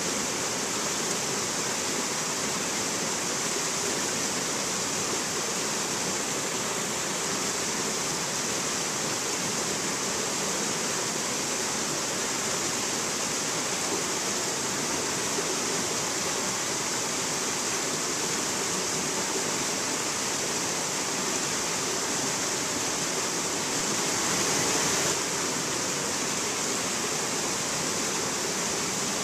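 Shallow mountain stream rushing and cascading over boulders, a steady full rush of water that swells briefly about three quarters of the way through.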